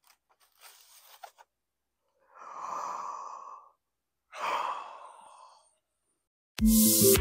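Two long, breathy sighs, each about a second and a half, after a few faint taps of plates being set down on a table. Loud electronic intro music with a steady beat cuts in near the end.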